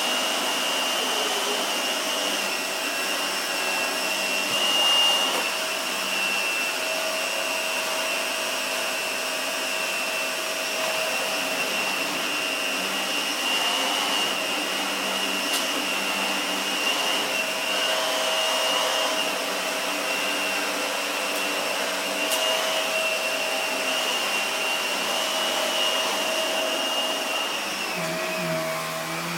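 Vacuum cleaner motor running steadily with a high-pitched whine; near the end the whine dips lower in pitch.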